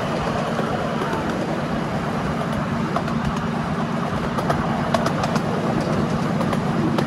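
Miniature ride-on railway train running along its narrow-gauge track: a steady rumble of the train and its wheels on the rails, with a few light clicks.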